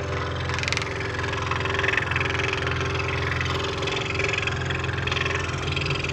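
Scroll saw running with a fine blade cutting 1/4" birch plywood: a steady motor hum with a rasping cut noise above it.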